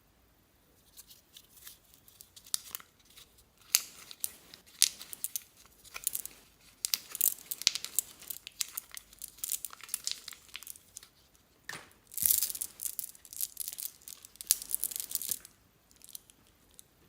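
Slime being squeezed and stretched by hand, giving bursts of sticky crackling and popping, with short pauses between squeezes.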